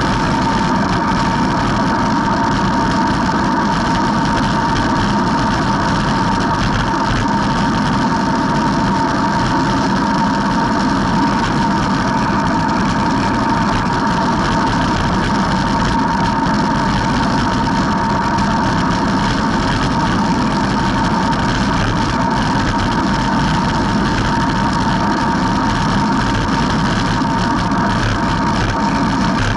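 Wind rushing over the microphone of a camera on a road bike descending at speed: a loud, constant rumble with a steady whining tone running through it.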